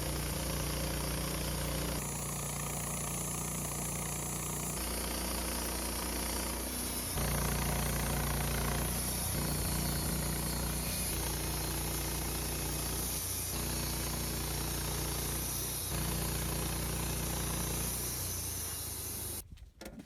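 Wood-Mizer band sawmill's engine running steadily, its sound shifting abruptly a few times, then breaking off near the end.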